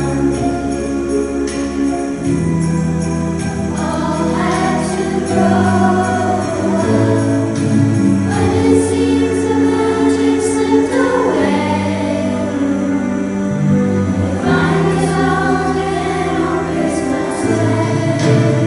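Christmas music: a choir of voices singing together over a held instrumental accompaniment, with jingle bells shaking along.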